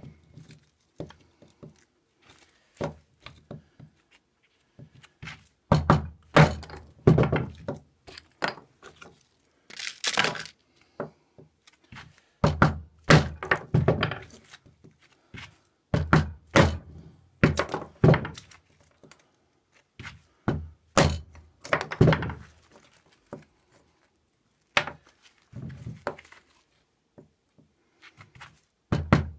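Repeated wooden thunks, in irregular clusters with short pauses, as a small XC75 carbon-steel neck knife chops into small blocks of wood on a workbench and splits them into pieces.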